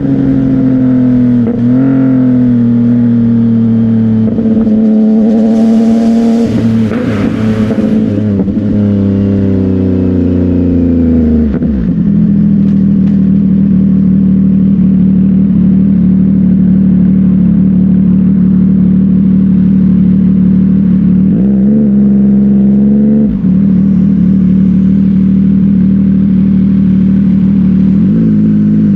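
CFMOTO 675NK three-cylinder engine through a titanium aftermarket exhaust, revving and changing pitch over the first dozen seconds, then held at steady high revs. The pitch dips sharply and recovers twice, like quick gear changes or throttle lifts.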